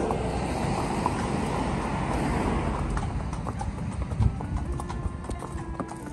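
Horses' hooves clip-clopping on a concrete bridge footpath, with the rush of a car passing on the road alongside that fades over the first few seconds.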